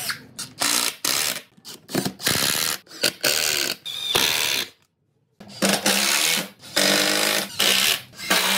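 Cordless drill and a Makita 18V impact driver driving screws into pine framing, in a quick series of short bursts as the trigger is squeezed and released.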